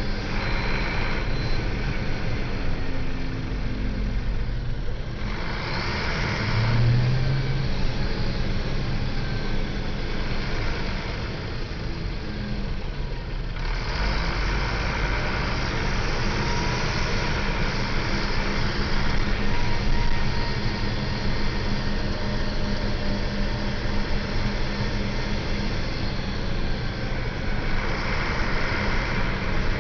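Diesel engine of a Scania L94UB city bus running steadily.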